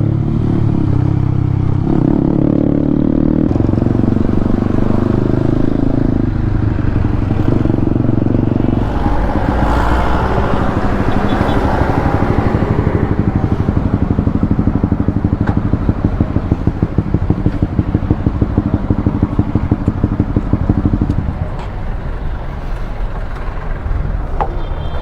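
Motorcycle engine running under way, its note stepping between steady pitches in the first several seconds, then a rushing noise, then a low, evenly pulsing beat at low revs that drops away about 21 seconds in.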